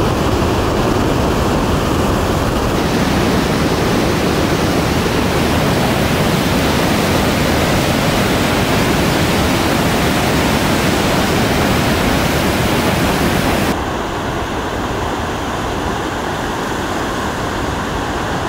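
Steady, loud rushing of whitewater river rapids. About fourteen seconds in it becomes a little quieter and duller.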